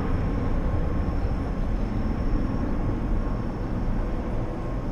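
Airbus A330 airliner's jet engines as it climbs away after takeoff: a steady low jet rumble that slowly fades as the aircraft recedes.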